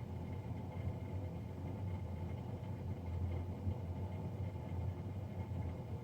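Navien NCB-240 combi boiler's blower fan running with a loud, steady low hum and rumble, with a faint higher whine above it.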